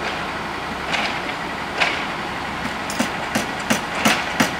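Construction-site machinery engine idling steadily, with a couple of single knocks and then, a little over halfway through, a run of regular hammer blows, about three a second, as workers build the wooden concrete forms.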